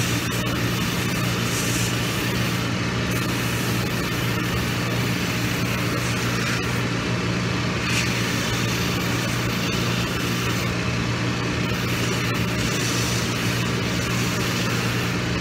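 Cobbler's shoe finishing machine running with a steady motor hum, its rough sanding band grinding down the edge of a new rubber Vibram sole close to the welt.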